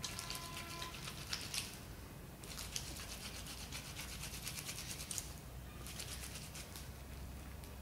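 Hands scrubbing a wet dress in soapy water in a steel bowl: quick rubbing strokes of wet, lathered fabric, with two short pauses.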